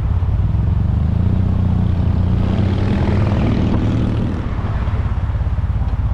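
Motorcycle engine running steadily on the road, its pitch rising slightly in the first few seconds.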